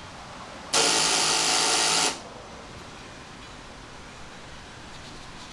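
2009 Kawasaki KLR650's starter relay chattering in one rapid buzz for about a second and a half as the starter button is pressed, without the engine starting. The owner takes it for a weak original battery.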